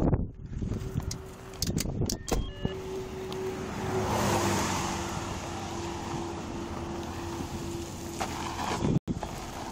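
Car door handling and knocks as someone gets out of a car, then a vehicle passing on the road, its rush swelling and fading around the middle, over a steady low hum.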